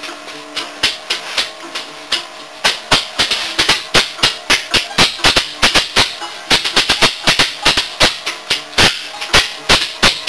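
An SC Freiburg fan clapper clacked by hand in a rhythm: sharp clacks, about two a second at first, coming quicker and denser, often in pairs, from about three seconds in.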